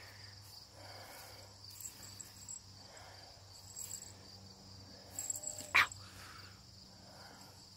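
A domestic cat gives small, faint meows, one of them louder about six seconds in. Crickets chirr steadily in the background.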